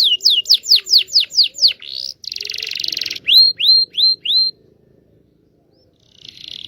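Canary song, as played to coax canaries into singing: a quick run of downward-sweeping whistled notes, about four a second, then a buzzy rapid trill about two seconds in, then four short rising notes. After a pause of about two seconds, another buzzy trill begins near the end.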